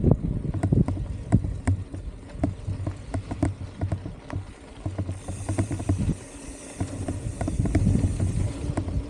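Mountain bike rolling over a rough dirt trail: irregular knocks and rattles from the bike over a low rumble of wind on the helmet-mounted camera's microphone. About five seconds in, a steady high hiss joins for around three and a half seconds.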